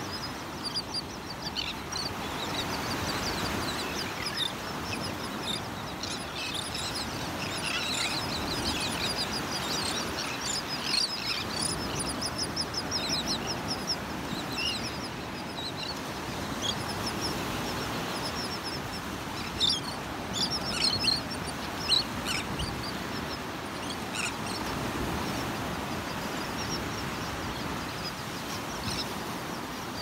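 A flock of terns and gulls calling over steady surf and wind noise, with many short, high, chattering notes and rapid strings of calls. A few louder calls come close by about two-thirds of the way through.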